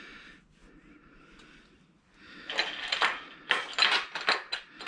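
Ratchet wrench clicking in quick runs as it is worked back and forth, tightening a fastener. It starts about two seconds in after a quiet stretch.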